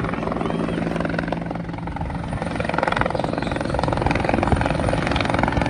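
Helicopter rotor chopping and turbine running steadily, close by, growing louder about halfway through.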